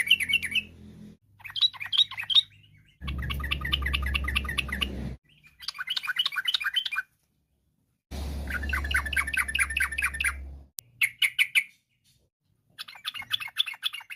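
Yellow-vented bulbul (trucukan) singing a string of short phrases of fast, repeated notes, about seven phrases with brief pauses between them. A low steady hum sits under some of the phrases.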